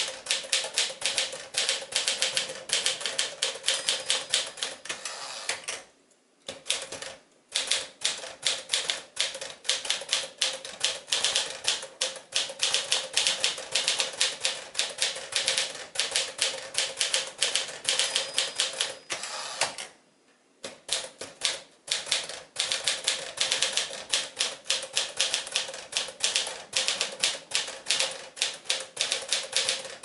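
1954 Smith-Corona Super manual portable typewriter being typed on: a fast, uneven run of keystroke clacks, broken by two short pauses, one about six seconds in and one about twenty seconds in.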